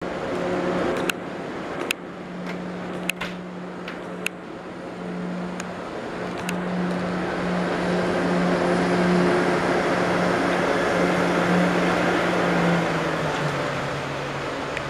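Electric train standing at a station platform with a steady electrical hum that drops in pitch near the end, a few sharp clicks in the first half, and a rushing noise that swells in the middle.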